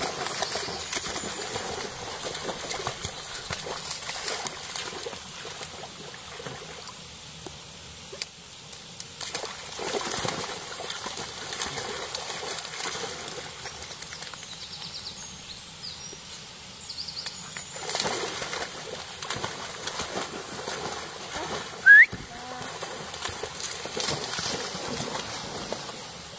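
Spaniels splashing as they wade through a shallow stream, over the steady sound of running water. A single short, loud, rising squeak near the end.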